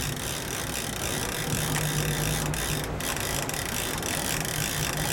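Fishing reel being cranked steadily against a hooked fish, its gears clicking, over a steady low hum of the boat's engine.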